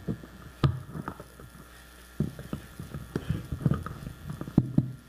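Scattered knocks, thumps and shuffles of chairs and footsteps as a roomful of people sit back down, with a quieter lull about a second in.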